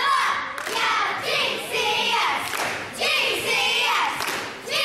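Young cheerleaders shouting a cheer chant in unison, in short rhythmic phrases, with thumps from the routine.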